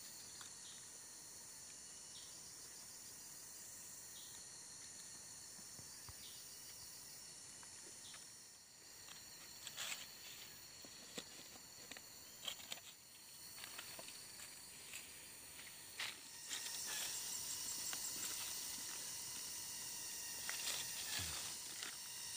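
Steady chorus of forest insects, with scattered light clicks and rustles of bamboo slats and dry leaves being handled over a snare pit from about nine seconds in, then a louder scraping rustle of hands spreading soil and leaves over the pit near the end.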